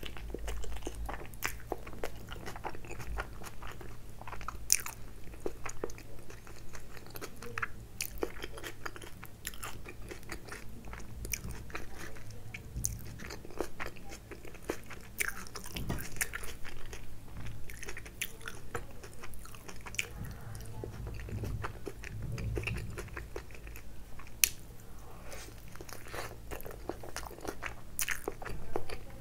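Close-miked biting and chewing of a chicken tikka wrap with crisp lettuce, with many small crunches and mouth clicks all through.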